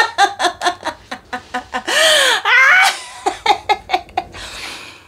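A woman laughing hard: rapid bursts of laughter, then a longer drawn-out laugh about two seconds in, trailing off into breathy laughing near the end.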